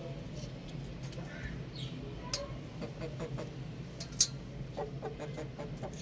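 Young roosters clucking, among a scatter of short sharp clicks, the loudest about four seconds in.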